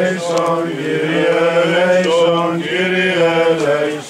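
Greek Orthodox Byzantine chant sung by voices: a slow melody of long held notes over a steady low drone note.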